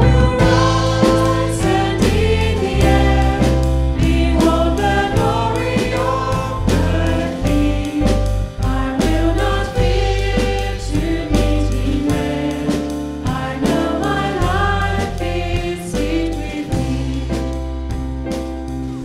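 Live worship band and congregation singing a contemporary hymn, with women's voices leading over electric bass and a drum kit. The music eases off a little near the end.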